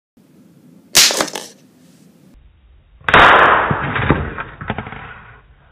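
Two explosions from a homemade capacitor-fired exploding-bridgewire detonator setting off nitrocellulose: a sharp crack about a second in, then a second loud bang about three seconds in, followed by about two seconds of crackles that die away.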